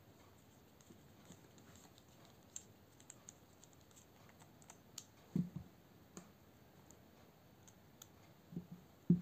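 Faint small metallic clicks and ticks of a Torx bit driver working the tiny screws of a folding knife, with a few soft knocks, the loudest near the end.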